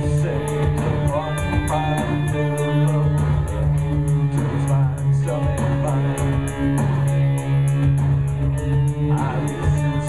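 Live industrial electronica: an electric guitar and synthesizer playing over a steady low synth drone, with a fast, even high tick keeping time throughout.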